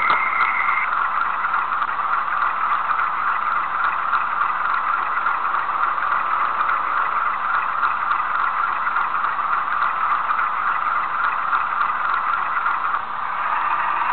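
Model Class 47 locomotive's DCC sound decoder playing a steady diesel engine idle through its small tinny speaker, the recorded sound of a Sulzer twin-bank diesel. A brief high tone sounds at the very start, and about a second before the end the sound changes as a higher hiss joins in and the level dips slightly.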